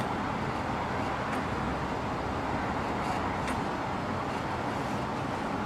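Steady background rumble and hiss, with a few faint clicks.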